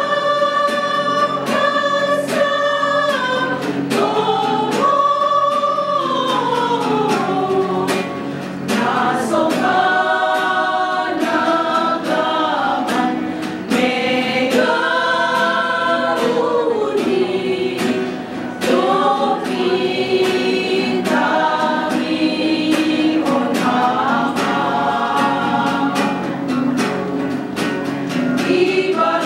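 Women's vocal group singing a Simalungun Batak hymn together, with long held notes that glide between pitches.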